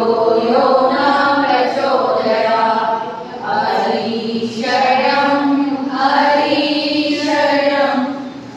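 A group of voices chanting together in unison, in long held sung phrases with short breaks between them.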